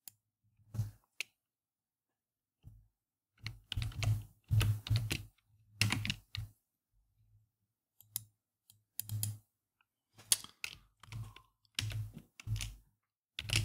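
Typing on a computer keyboard: irregular runs of keystrokes with short pauses between them.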